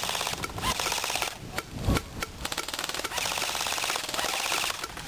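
Airsoft guns firing in rapid full-auto bursts, a fast rattle of shots that breaks off for a moment about a second in and then resumes. A single dull thump, the loudest sound, comes about two seconds in.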